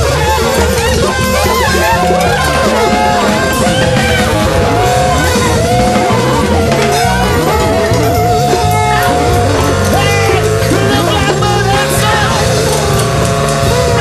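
Instrumental band music: drum kit and bass under guitar, with a lead line that bends and wavers in pitch.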